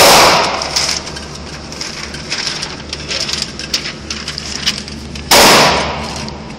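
Two gunshots about five seconds apart, each very loud with a long echo dying away inside an indoor firing range; small clicks and knocks between them.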